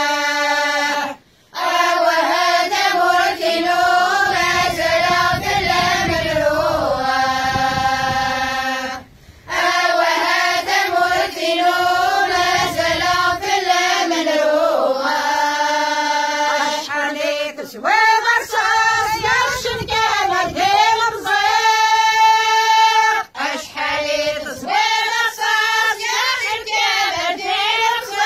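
Group of women and girls singing a Kabyle song together in unison, unaccompanied, phrase by phrase, with short breaths between phrases about a second in and again around nine seconds in.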